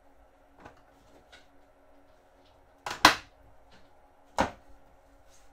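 Wooden cupboard doors under a washbasin being handled and shut: a few faint ticks, then a sharp double knock about three seconds in and another knock about a second and a half later, over a faint steady hum.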